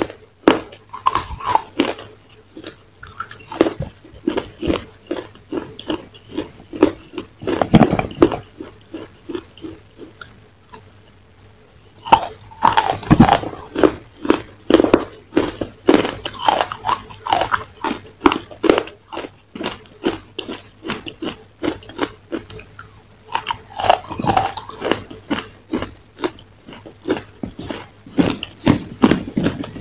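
Close-miked eating: repeated crisp crunches and chewing as a crumb-coated dessert is bitten and chewed, with a brief lull partway through.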